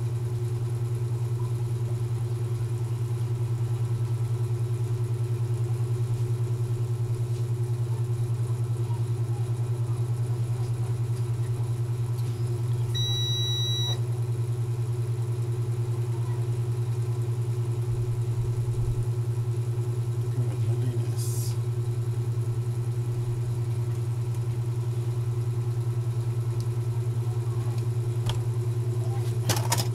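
Steady low motor hum, unchanging throughout, with a short electronic beep about thirteen seconds in and a few light clicks near the end.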